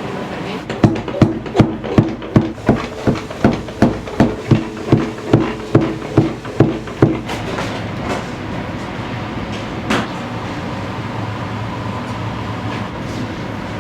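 A knife chopping on a cutting board in even strokes, about seventeen at roughly two and a half a second, stopping about seven seconds in. A steady kitchen hum runs underneath, with one more sharp knock near the end.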